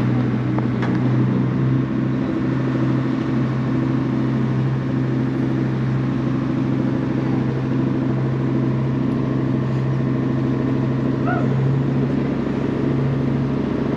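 A ferry's engine running with a steady low drone, heard from on board, under an even hiss.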